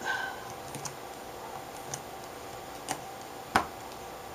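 Several light, separate clicks and taps of a small hand tool working against a thin metal backlight reflector and LED strip. The sharpest click comes about three and a half seconds in.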